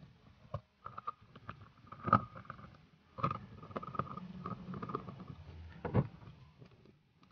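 A screwdriver turning out the cover screws of a small antenna matching-transformer enclosure while hands move the box: scattered light clicks and knocks, a sharper knock about two seconds in and another near six seconds, with a few seconds of low rubbing noise between them.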